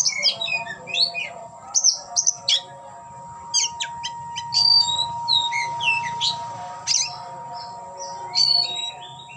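Oriental magpie-robin (kacer) singing in full song: a varied run of loud whistled phrases, sweeping notes and quick chattering notes with short pauses between them. A faint steady tone runs underneath.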